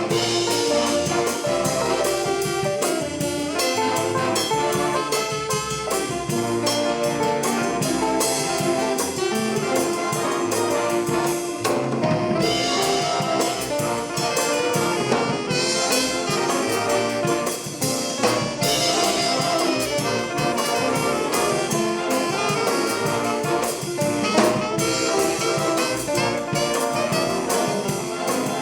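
A high school swing band playing brass-led instrumental big-band jazz, with trumpets, trombones and saxophones over a steady beat.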